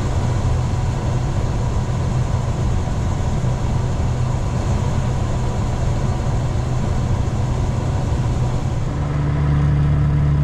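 A heavy diesel farm engine runs steadily under load, with a low drone. About nine seconds in, its note settles into a steadier, slightly louder hum.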